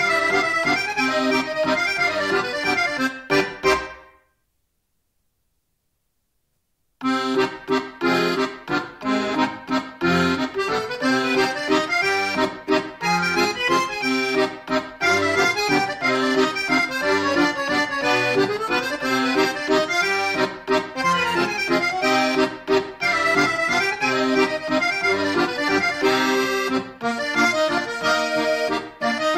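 Accordion music. About four seconds in it fades out quickly to about three seconds of complete silence, then an accordion tune starts again abruptly and plays on.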